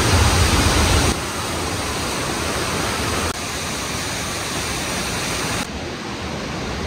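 Rushing water of a waterfall and the Aare river in a narrow rock gorge: a steady, even rush. It drops abruptly in level about a second in and steps down suddenly twice more later.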